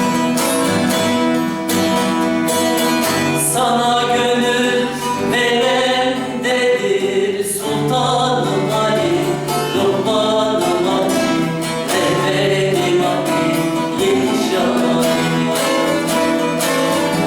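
Bağlama and guitar playing a Turkish folk song, plucked and strummed, with a voice singing over them.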